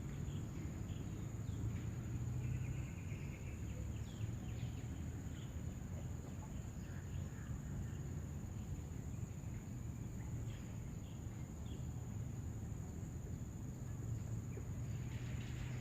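Outdoor yard ambience: a steady high-pitched insect drone, with scattered short chirps of small birds and a low background rumble.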